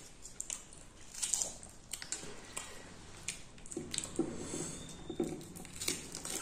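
Close-up eating sounds: chewing of deep-fried puri with short crisp crackles, then wet squishing about four seconds in as fingers scoop up soft potato curry.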